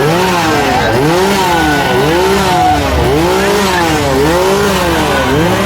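Small two-stroke chainsaw engine revved up and down again and again, its pitch rising and falling about once a second.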